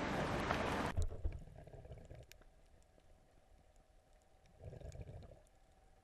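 Loud rushing wind and sea noise on the microphone for about the first second, then a sudden switch to the muffled sound of a camera underwater: low sloshing, a brief swell of water noise about two-thirds of the way in, and faint scattered clicks.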